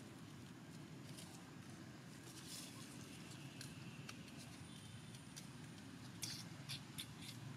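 Faint outdoor ambience: a steady low rumble with a few soft, sharp clicks near the end.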